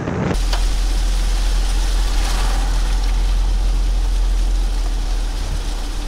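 Strong gusting wind buffeting the microphone: a heavy low rumble under a steady rushing hiss that starts suddenly a moment in.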